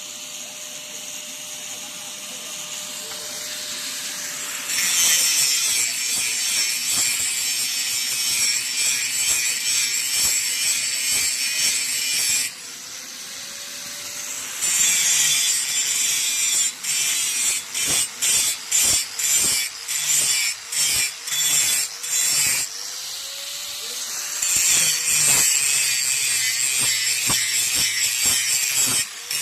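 A steel knife blade being sharpened: a harsh, hissing rasp of metal against an abrasive, in long passes with short pauses between them. In the middle the passes break into a quick run of short strokes.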